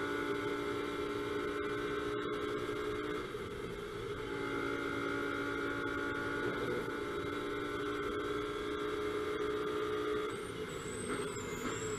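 Lamborghini Huracán GT3's V10 engine running at high, steady revs at full throttle, heard from inside the cockpit. The note briefly dips about three seconds in. Near the end the steady note drops away and a thin, high wavering whine comes in.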